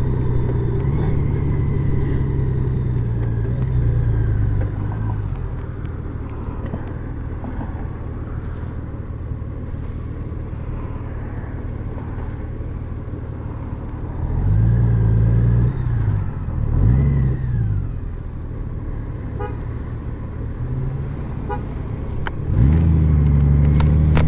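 Honda Gold Wing motorcycle engine running under way. It drops to a quieter low running after about five seconds, swells briefly twice past the middle, and comes back up louder and steady near the end as the bike pulls away.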